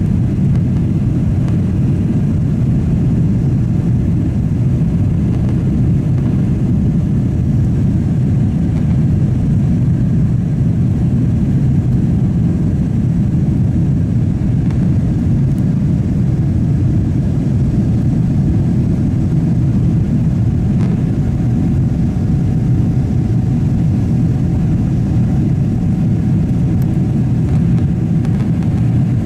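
Steady low rumble of a Boeing 777-300's jet engines and airflow heard inside the passenger cabin, with no change in pitch.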